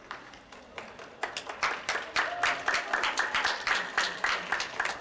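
Small audience applauding: a few scattered claps at first, building into steady clapping about a second in.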